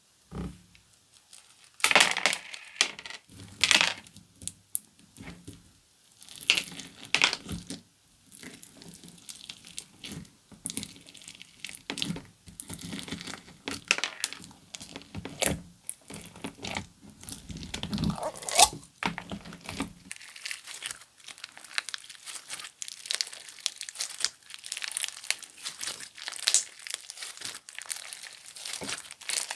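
Comelly 'Guacamole' slime being squished, stretched and poked by hand, giving many sharp crackling pops. Louder separate pops come in the first several seconds and again around the middle, followed by a denser, quieter run of fine crackling.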